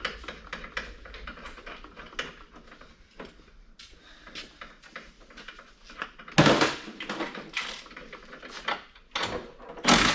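Metal tools and parts clinking and knocking during work on a snowmobile's front suspension, with a louder clatter about six seconds in and again near the end.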